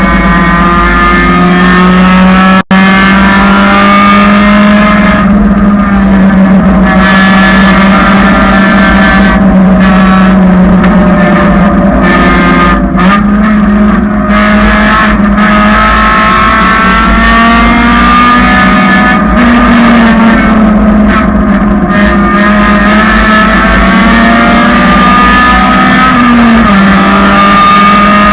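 1999 Honda Civic engine running hard on a race track. Its pitch slowly rises and falls with the revs, and there is a very brief cut in the sound about three seconds in.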